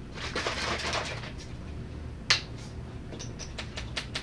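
A small tasting cup being handled at a desk: light clicks and taps, one sharper click about two seconds in and a quick run of smaller ones near the end, over a steady low room hum, with a second of soft noise near the start.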